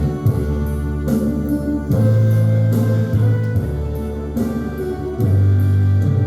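Instrumental music: held chords over a heavy bass line, the chord changing about every two to three seconds, with drum and cymbal hits.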